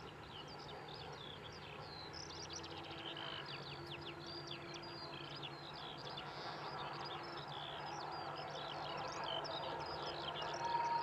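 Songbirds singing in a busy chorus of chirps and trills over the steady, slowly swelling rumble of a distant steam train. Near the end a long, steady whistle-like tone begins.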